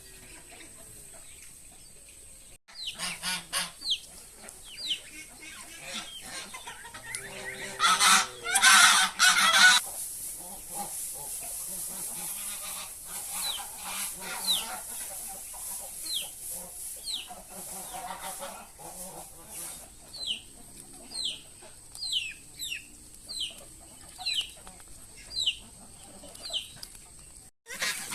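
Farmyard bird calls: a long run of short, high, falling chirps. A lower call and a loud burst of noise come about eight seconds in.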